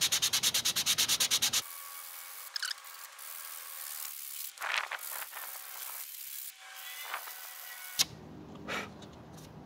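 Hand sanding with 80-grit sandpaper on a Bondo-filled 3D-printed plastic part. Quick, even back-and-forth strokes at about six a second for the first second and a half, then quieter, softer scratching.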